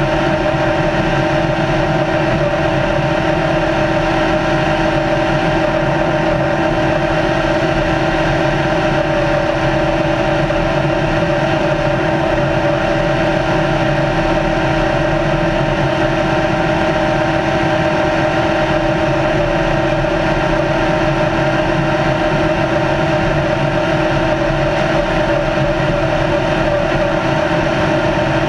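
Race car's engine running at steady, unchanging revs as the car cruises at speed, a constant drone over road and wind noise.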